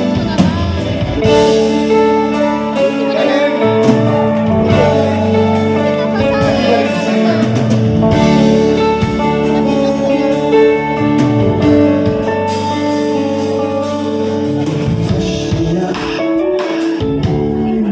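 Live band playing a ballad: electric guitar to the fore over bass and drums.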